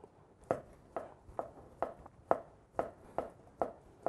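Chinese cleaver slicing a block of fish cake on a wooden cutting board, each stroke knocking the blade onto the board, about two cuts a second in an even rhythm, starting about half a second in.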